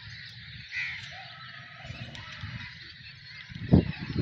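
Outdoor farm ambience: faint animal calls over a steady hiss, with a loud low rumble on the microphone starting near the end.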